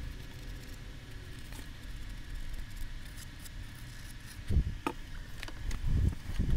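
Wooden stir stick scraping and smearing Bondo glazing and spot putty along a seam in balsa sheeting, a steady soft scraping, with a few dull knocks of the fuselage being handled near the end.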